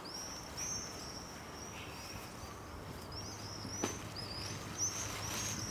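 Small birds chirping in a rapid series of short, high-pitched notes, with a single sharp click just before four seconds in.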